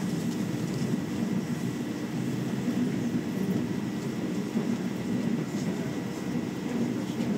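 Madrid Metro Line 10 train running at speed, heard from inside the carriage: a steady, even rumble, with a faint steady high tone above it.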